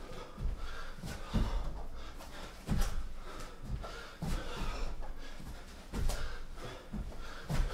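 A person doing burpees on a thin exercise mat: repeated thuds of hands and sock feet landing and jumping, about one a second, with heavy, puffing breaths between.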